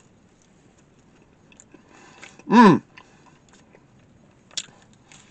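A man chewing a mouthful of pizza, with faint scattered chewing clicks. About halfway through he gives one short, loud closed-mouth "hmm" whose pitch rises and falls, and a sharp mouth click comes near the end.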